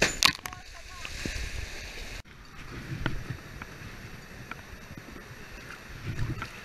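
A person jumping into a deep rock pool: a loud splash right at the start, then the hiss of churned water settling. About two seconds in, it cuts abruptly to people wading through a shallow stream, the water sloshing around their legs.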